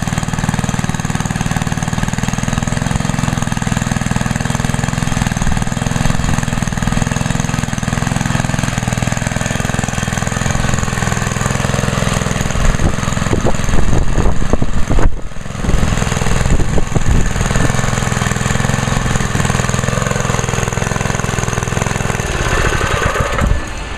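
1971 Trim-All edger's 2 hp single-cylinder Briggs & Stratton engine running steadily and smoothly, freshly started after four pulls. It gets louder and rougher for a few seconds in the middle, with a brief drop about fifteen seconds in.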